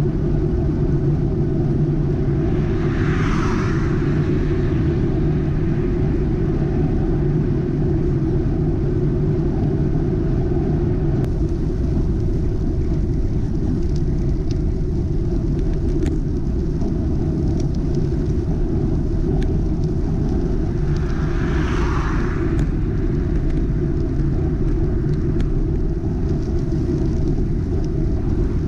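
Steady low rumble of wind and tyres heard from a camera on a moving bicycle. Two cars overtake on a damp road: their tyre hiss swells and fades about three seconds in and again about twenty-two seconds in.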